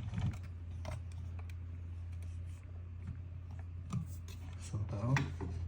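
Light clicks and taps of small metal lock parts being handled and set down, with a few sharper clicks about five seconds in, over a steady low hum.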